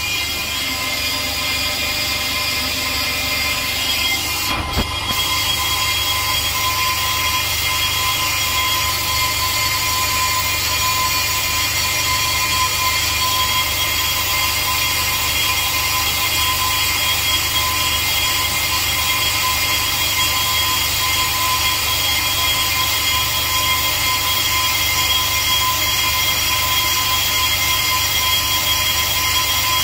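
Brake lathe turning a new Zimmermann brake disc, its cutting tools skimming both faces to take out runout. A steady machine whine with high ringing tones, dipping briefly about four and a half seconds in.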